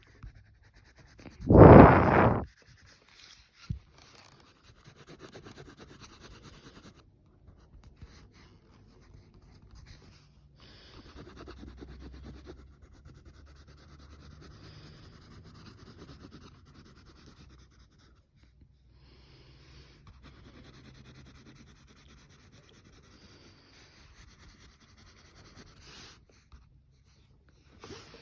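Colouring strokes scratching on paper in long stretches, with one loud heavy breath blown into the microphone about two seconds in.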